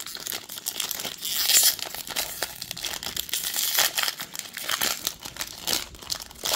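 Foil wrapper of a Topps baseball card pack being torn open and peeled back by hand: continuous crinkling and ripping, loudest about a second and a half in.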